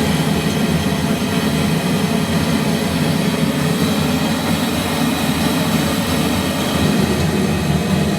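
Forge running with a steady, even roar, heating a borax-fluxed three-layer san-mai billet toward forge-welding heat of about 1,000 degrees.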